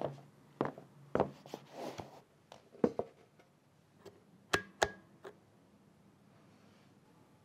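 A portable heater's control knob being turned by hand, giving two sharp clicks in quick succession with a brief metallic ring. They come after a few scattered soft clicks and knocks, and are followed by a faint steady background.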